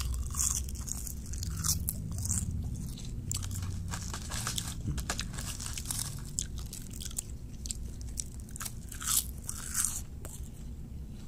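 Crisp roasted seaweed snack sheets being bitten and chewed close to the microphone: a long run of short, dry crunches, loudest in the first couple of seconds and again about nine seconds in.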